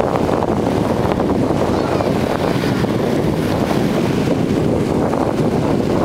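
Wind buffeting the camera microphone, a steady, loud low rumble, over small waves lapping at the shoreline.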